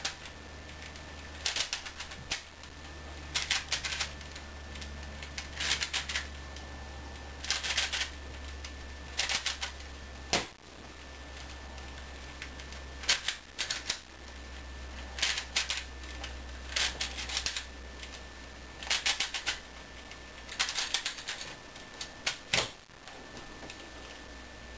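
A plastic V-Cube twisty puzzle being turned by hand as a checkerboard pattern is made. The layers click and clack in quick bursts every second or two, with one sharper, louder click about ten seconds in. A low steady hum runs underneath.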